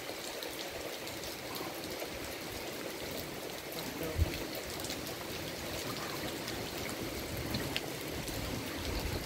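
Steady rain falling, a constant hiss with a fine patter of drops. A brief low thump about four seconds in.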